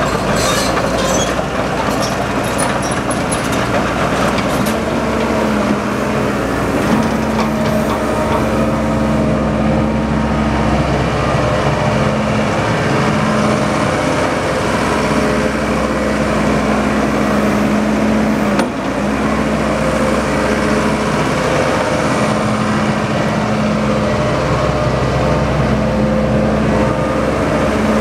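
Case crawler excavator's diesel engine running steadily under load. Its pitch steps up and down several times as the machine is worked, with a short dip a little past halfway and some light clicking in the first few seconds.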